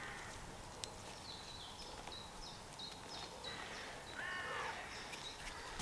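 Wild birds calling: a run of short, high, falling chirps, then a single harsh caw about four seconds in. All of it is faint.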